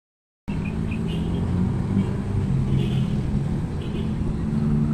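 Engine noise from motor vehicles: a steady low rumble with a wavering engine hum, starting abruptly about half a second in.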